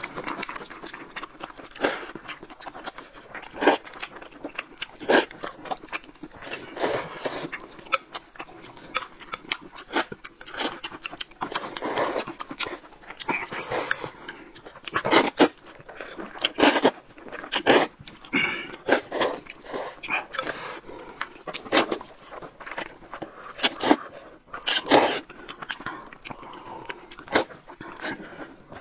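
Noodles being slurped from a bowl of broth and chewed, with loud slurps coming every second or two in an uneven rhythm.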